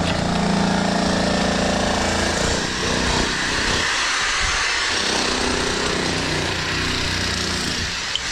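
Construction machinery or a power tool running steadily: a loud, continuous mechanical noise with a low engine hum that shifts in pitch several times.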